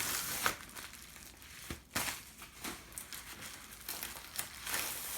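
Packaging crinkling and rustling as a new laptop replacement screen is unwrapped and handled, with a few sharp clicks among the rustles.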